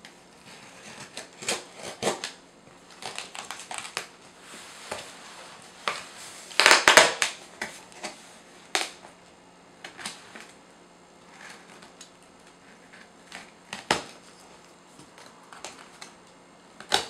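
A cardboard shipping box being opened: packing tape slit and pulled, and cardboard flaps scraping and crackling in irregular bursts, the loudest about halfway through.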